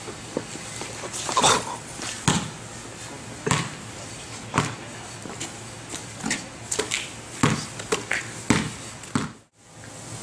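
A basketball thudding as it is bounced and shot at a hoop: a series of irregular knocks, roughly one a second.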